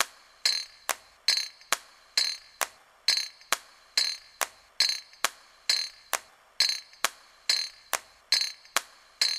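Wooden spoon knocking against a glass mixing bowl while stirring a thick flour, egg and coconut-milk batter: sharp clinks with a short ring, about two a second in a steady rhythm.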